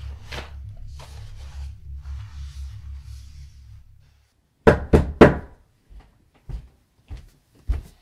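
Three loud knocks on a front door in quick succession about five seconds in, followed by a few softer thuds. Before that, a cloth rubs faintly over the floor tiles against a low steady hum.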